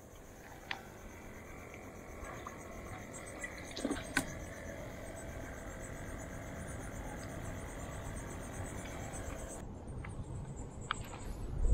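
Insects trilling steadily in the background, with a few light clicks and knocks as the bait bucket and net are handled about four seconds in. The trilling drops away near the end.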